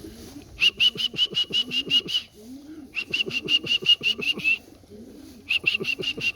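Pigeons cooing around the loft, with three loud runs of rapid, evenly repeated high-pitched notes, about seven a second, each run lasting about a second and a half.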